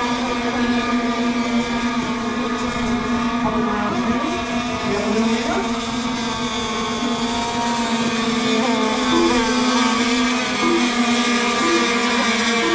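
Several radio-controlled racing boats running at full speed, their engines giving a steady, high-pitched drone made of several overlapping tones that shift slightly in pitch as the boats pass.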